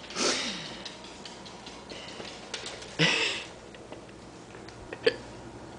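Puppy tussling with a bra on a hardwood floor: two short rustling bursts, about a third of a second in and about three seconds in, a few light ticks, and a sharp click near the end.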